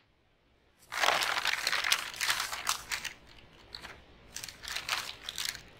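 Paper rustling and crinkling, as of loose sheets flapping and fluttering, in two spells: from about a second in, and again near the end.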